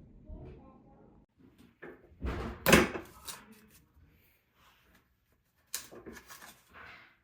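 A few sharp knocks and clattering handling noises in two clusters, the loudest about three seconds in.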